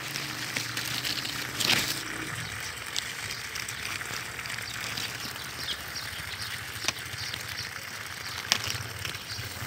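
Honeybee swarm buzzing close to the microphone, a steady dense hiss of wings with a low hum in the first couple of seconds, broken by a few light ticks, the loudest about two seconds in.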